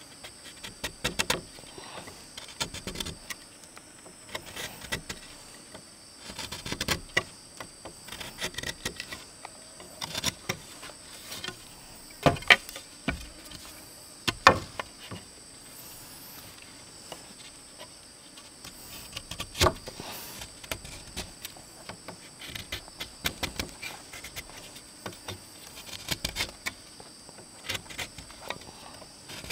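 Scattered, irregular knocks and clicks, some sharp, with a steady high-pitched insect drone underneath.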